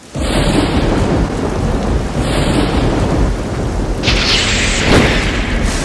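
Thunderstorm sound effect: steady heavy rain with rumbling thunder, and a sharp thunderclap about four seconds in.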